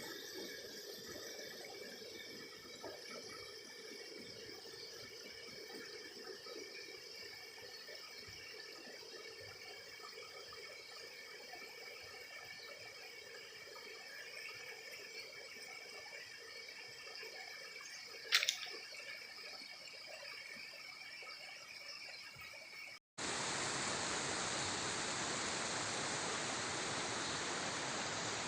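Flowing water running steadily and fairly quietly, with a single sharp click about 18 seconds in. After a brief cut-out about 23 seconds in, a much louder, even rush of water takes over.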